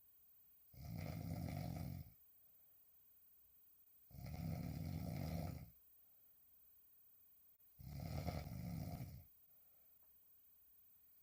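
A woman snoring while sleeping on her back: three long snores of about a second and a half each, coming roughly every three and a half seconds, with quiet gaps between.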